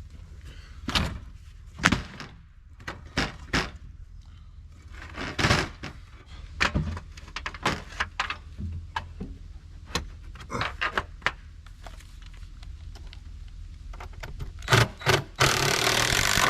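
Irregular knocks and thunks of cinder blocks and lumber being handled and set in place, with a loud harsh rushing noise about a second long near the end.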